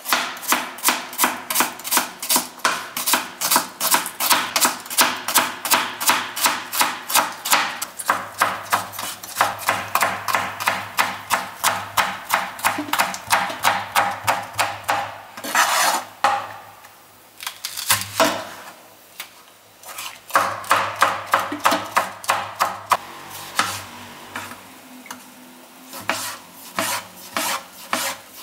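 Kitchen knife chopping vegetables on a plastic cutting board: rapid, even knocks of the blade on the board, several a second, as onion, green peppers and then tomatoes are sliced. Around the middle the knocking pauses for a short scraping sound and a quieter stretch before it picks up again.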